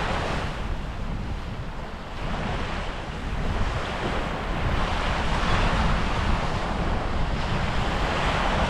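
Gulf surf breaking on the beach, swelling and easing over a few seconds, with wind buffeting the microphone.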